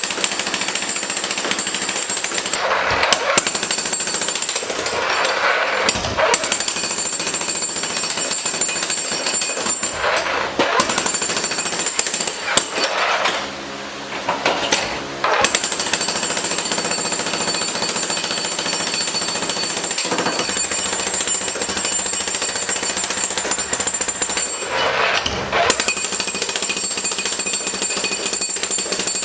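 Jackhammer chipping out concrete curbs, hammering steadily with a few short breaks, the longest about halfway through.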